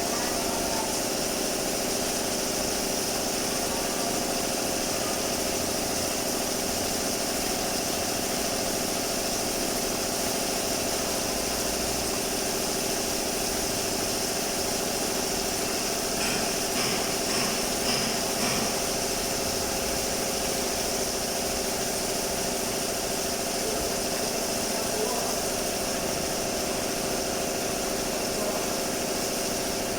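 A machine running steadily with a hum and a hiss, with a few light clicks about halfway through.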